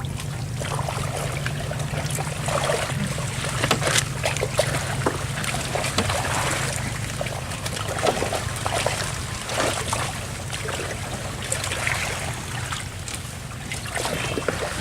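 Small boat's motor running steadily on the river, with water splashing and trickling around the hull.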